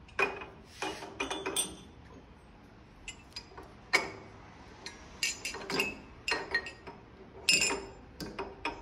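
Aluminium vibraharp bars clinking and knocking against each other and the metal frame as they are set by hand onto the posts, in irregular clusters, some strikes leaving a brief ring.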